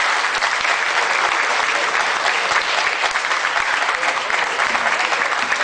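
Audience applauding: dense, steady clapping from many hands, easing slightly near the end.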